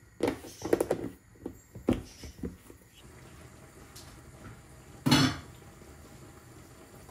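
Kitchen handling sounds: a quick run of small clinks and knocks as a glass spice jar and its lid are handled on the counter, then, after a quieter stretch, one short louder clatter of a pot and lid about five seconds in.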